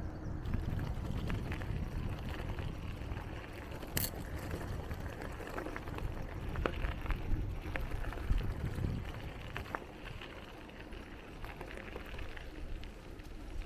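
Wind rumbling on the microphone during a bicycle ride, with scattered light clicks and rattles and one sharp click about four seconds in.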